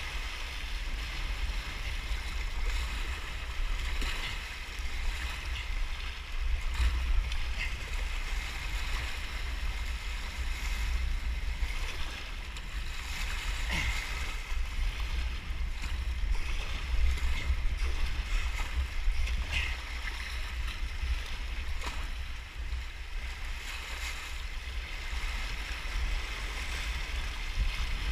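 White water rushing and churning around a sea kayak's hull, with a few brief splashes along the way. Wind buffets the microphone, adding a steady low rumble.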